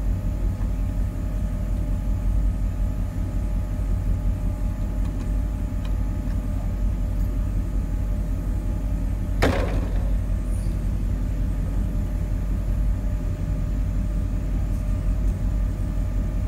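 Steady low rumble of a vehicle engine idling, with one sharp clack about nine and a half seconds in.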